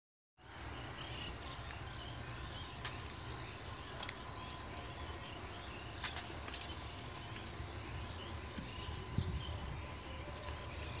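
Faint outdoor ambience by the railway tracks: a low steady rumble with soft chirping and a few faint clicks.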